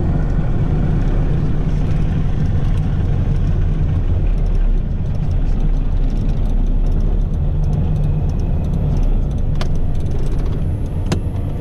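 Cessna 421's twin piston engines running at low power on the ground, a steady low drone heard inside the cabin. A couple of faint clicks come near the end.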